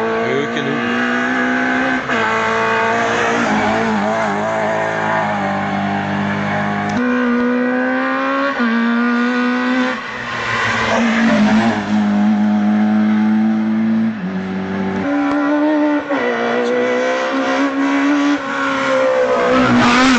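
Hill-climb race car's engine revving hard as it climbs toward the listener, its pitch jumping and dropping again and again as it shifts through the gears, growing louder near the end as the car arrives.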